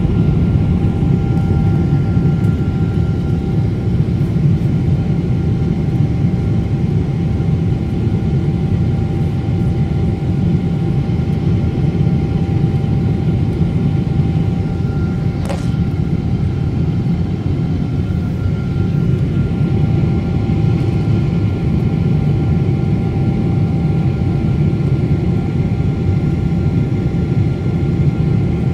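Boeing 777-200 cabin noise in the climb after takeoff: a steady, loud low rumble of engines and airflow, with two faint steady whining tones above it. A single sharp click sounds about halfway through.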